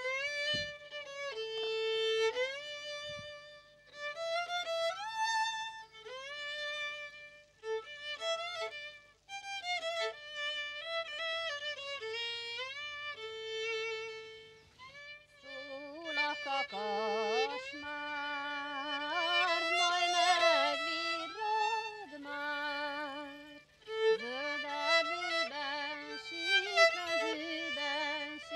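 Solo violin playing a Hungarian folk song (nóta): a melody of held notes joined by slides, with vibrato. About halfway through, a second, lower line joins it.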